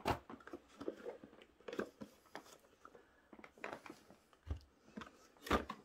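Handling noise: light rustling and small clicks as papers and a cordless LED work light are handled, with a low thump about four and a half seconds in and a sharper knock near the end as the work light is lifted and moved.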